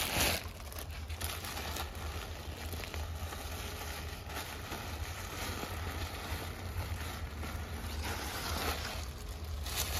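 Crackling rustle of leaves and protective covers as they are slipped over the corn heads, over a steady low wind rumble on the microphone.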